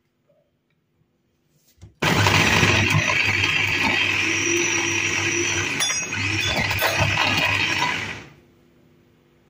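Electric mini food chopper running with its blade chopping kiwi pieces and dates. It starts abruptly about two seconds in, whirs steadily for about six seconds, then winds down.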